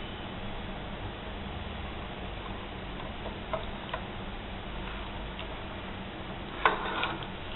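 A steel spoon ticking and scraping against a ceramic bowl as marinated paneer is scraped out into an aluminium tin: a couple of light clicks around the middle and a louder cluster of clicks near the end, over a steady background hiss and hum.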